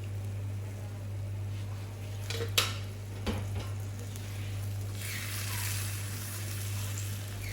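Onion, tomato and cashew gravy with water just added, sizzling in a pan as it heats toward the boil, with two sharp utensil knocks against the pan around a third of the way in. The sizzle grows louder about five seconds in, over a steady low hum.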